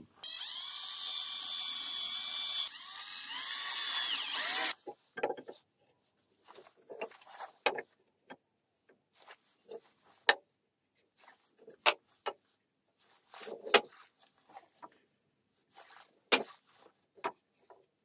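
Cordless drill running steadily at high speed for about four and a half seconds, then cutting off sharply. After it come scattered light knocks and clatter of wooden slats being handled and set in place.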